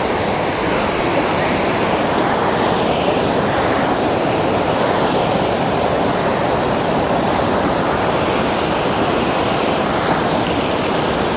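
Steady, loud rush of water pouring over a small rocky waterfall cascade.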